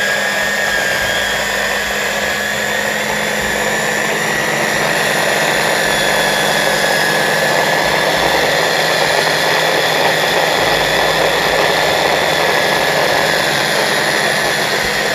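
Electric hand blender motor driving a chopper bowl attachment, switched on and running at a steady speed, a dense whir with a steady high whine, as it blends rocket, pine nuts, Parmesan and olive oil into pesto.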